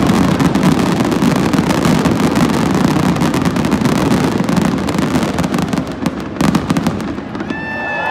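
Fireworks finale: a dense, continuous barrage of bangs and crackling that thins to a few last separate bangs about six and a half seconds in, then dies away.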